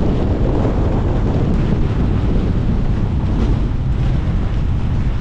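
Gale-force wind buffeting the camera microphone: a loud, steady low rumble of wind noise.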